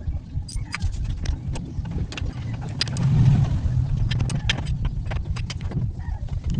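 Irregular metallic clicks and clinks over a continuous low rumble that swells for a second or so about three seconds in.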